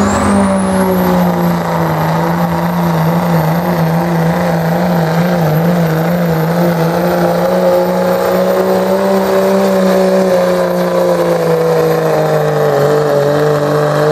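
Dodge Ram pickup's 5.9 L Cummins turbo-diesel inline-six held at full throttle under load, dragging the weight-transfer sled. The engine note is steady with a slight waver, and a high, steady turbocharger whistle rides over it.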